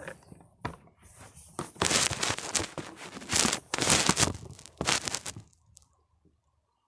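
Handling noise: a few light clicks, then crinkling, rustling bursts from about two seconds in that stop after about five seconds.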